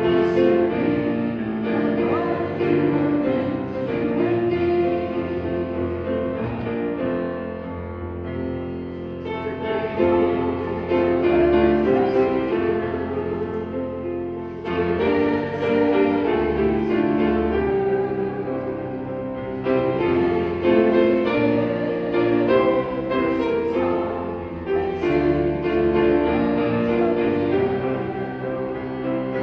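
Congregation singing a hymn together, accompanied by a grand piano.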